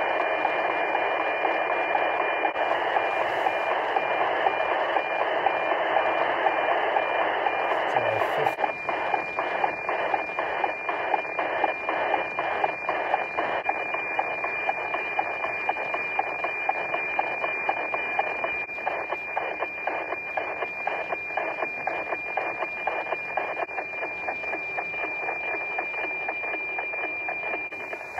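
NOAA-18 weather satellite's APT image signal, received on an Anytone D878UV Plus handheld radio and heard through its speaker. It is a steady high tone over hiss, with a regular ticking beat that comes through clearer about eight seconds in as the satellite climbs higher.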